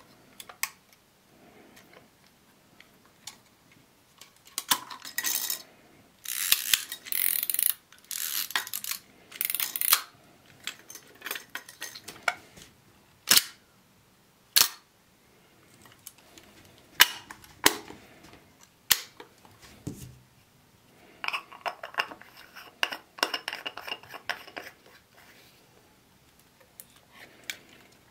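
Zenit 12XP mechanical 35 mm SLR camera body being worked by hand: irregular mechanical clicks, rasping ratchet-like bursts and several sharp snaps. In the second half there is a mechanical buzz lasting about four seconds.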